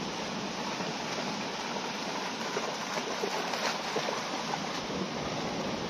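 Shallow rocky river running steadily over stones, with a few splashes in the middle as a Nova Scotia duck tolling retriever runs through the shallows.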